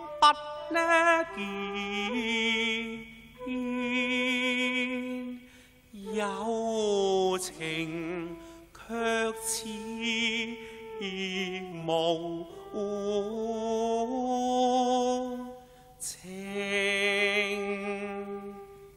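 Cantonese opera singing: one voice in a scholar's role drawing out long, wavering held notes, phrase by phrase, with short breaks between phrases.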